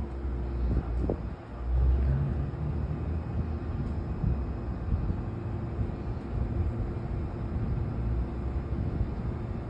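Meitetsu electric train standing at the platform, its onboard equipment giving off a steady low rumble with a faint steady hum, and a brief sound about a second in.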